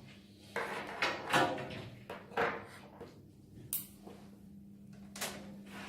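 Cables and plastic network connectors being handled and plugged in: rustling with several separate clicks and knocks, over a faint steady hum.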